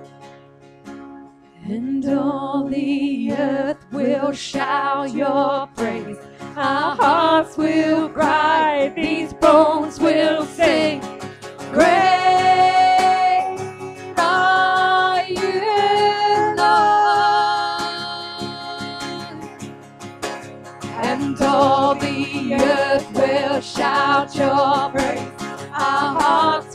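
Women singing a contemporary worship song to strummed acoustic guitar. The voices come in about two seconds in, with long held notes midway through.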